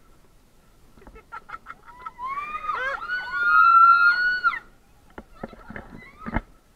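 People riding a giant swing screaming: several long, high, overlapping screams from about two seconds in that fall away near the middle. A few sharp knocks follow near the end.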